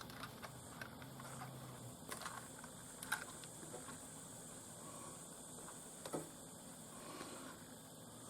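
Faint room noise with a few light clicks, the sharpest about three seconds in and another about six seconds in.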